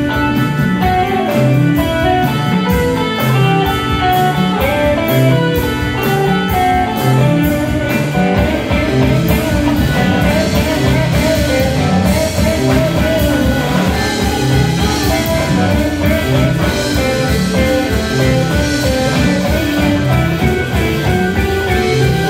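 Live band playing: electric guitar over a drum kit and bass line, with the drumming growing fuller about eight seconds in.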